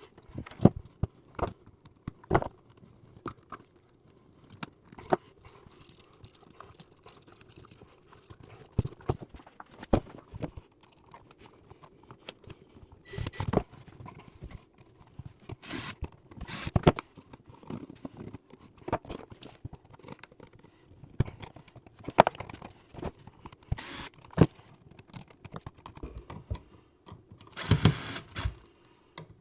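Hand work with tools and small hardware: irregular clicks, taps and knocks, with a few brief, harsher scraping or rattling bursts.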